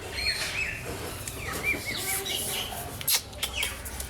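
Puppy whimpering in a run of short, high squeaks that bend up and down in pitch, with a few sharp clicks about three seconds in.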